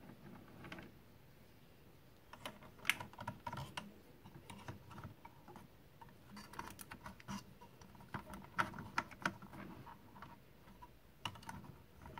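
Light clicks and taps of a 1:24-scale diecast police SUV model being handled and its doors opened, coming in uneven clusters from about two seconds in until near the end.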